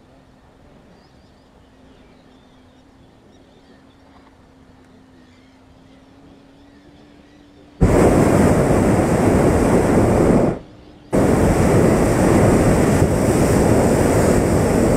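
Hot-air balloon's propane burner firing overhead: a loud, steady roar starts about eight seconds in after a quiet stretch, stops for about half a second, then fires again for about five seconds.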